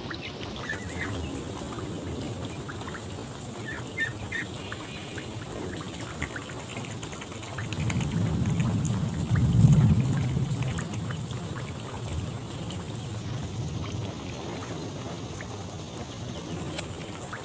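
Steady rain with a low rumble of thunder that swells about eight seconds in and fades a few seconds later.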